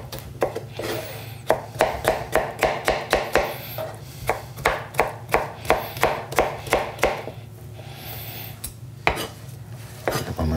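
Chef's knife dicing soft mango on a plastic cutting board: quick, even knocks of the blade on the board, about four a second. The knocks stop about seven seconds in, with one more knock near the end.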